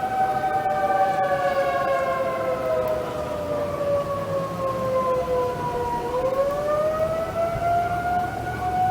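Outdoor tornado warning sirens sounding for a tornado warning. One holds a steady tone while another slowly falls in pitch for about six seconds, then rises back up.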